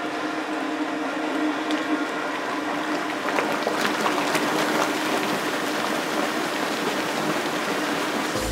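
Factory machinery running in a curry roux plant: a steady hiss over a constant low hum, with scattered clicks.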